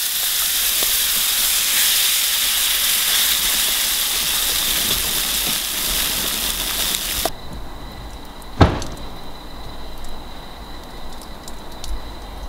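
Liquid poured into a hot metal baking tray of squid rings in tomato sauce over a wood fire, hissing and sizzling steadily as it boils and is stirred. The hiss cuts off suddenly about seven seconds in. A quiet outdoor background follows, with one sharp click a second later.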